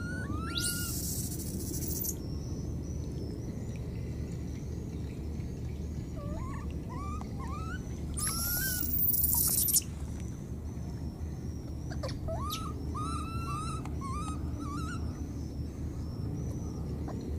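Baby monkey squeaking: clusters of short, high cries that rise and fall in pitch, over a steady low background rumble. Two bursts of high hiss come through, one about a second in and a louder one about halfway.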